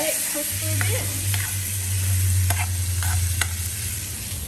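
Diced chicken sizzling in butter in a hot non-stick frying pan while it is stirred with a metal spoon, which clicks against the pan several times. A low hum runs underneath for about three seconds, starting about half a second in.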